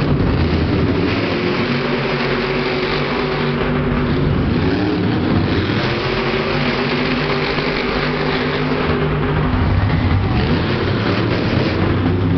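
Two monster trucks' supercharged V8 engines running hard as they race, the revs rising and falling as they accelerate and back off.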